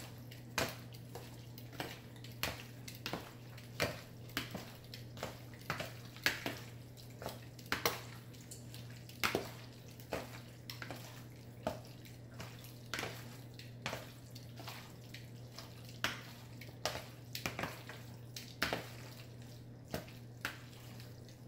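Metal tongs tossing raw chicken thigh pieces in curry seasoning in a plastic bowl: irregular clicks and slaps of the tongs and meat, about one or two a second.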